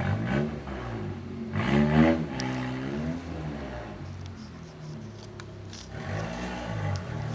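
Passing road traffic: motor vehicle engines rising and falling in pitch as they accelerate by, three times, the loudest about two seconds in, over a steady low engine hum.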